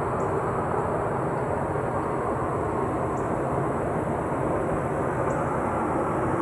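A steady, even rumbling drone from the sky, with no change in loudness or pitch, of unexplained origin.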